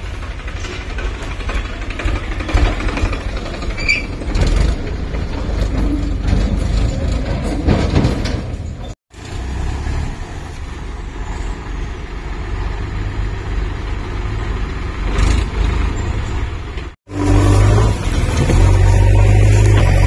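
Diesel tractor engines running, with two brief dropouts about nine seconds in and again near the end. After the second dropout a louder, steadier engine runs close by, as a JCB backhoe loader works beside a tractor trailer.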